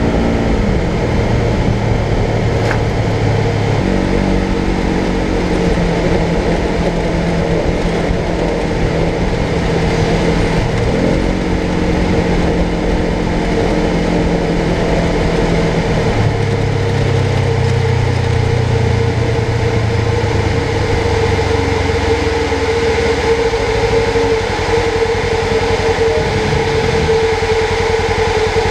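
Polaris General XP 1000 side-by-side's engine running under way, its note dropping and rising several times with the throttle, over a steady high whine that grows stronger in the second half.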